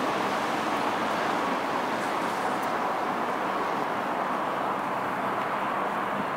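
Steady city street ambience: a continuous, even hiss of distant traffic.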